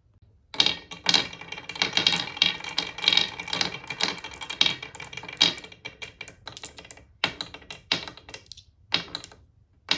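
Glass marbles rolling and clattering down a wooden marble-run slider: a dense run of rapid clicks and knocks with some ringing for about five seconds, then thinning to scattered separate clacks near the end.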